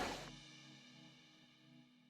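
Background music fading out: a last held guitar chord dying away to silence.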